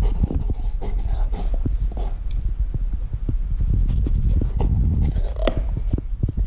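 Golden retriever gnawing and licking a rubber chew toy wrapped in rawhide treat rings, close up: a run of wet mouth sounds and small clicks of teeth on the toy, with one sharper click about five and a half seconds in.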